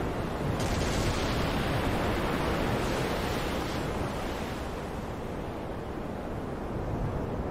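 Waves and wind of a stormy sea: a steady rushing noise that turns brighter and hissier from about half a second in until about four seconds in.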